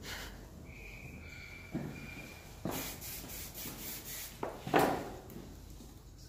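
Grooming handling noises on the table: a few knocks and rubs, the loudest about three-quarters through, with a hissing stretch in the middle that fits short sprays of aerosol hairspray on a poodle's topknot.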